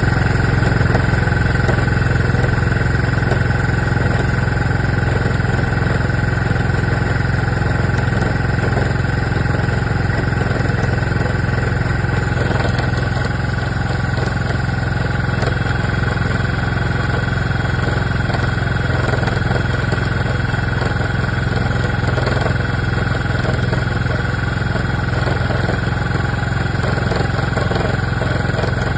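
Keeway Vieste 300 scooter running steadily, with a constant high-pitched tone over the engine: the CVT noise that a variator replacement has not cured.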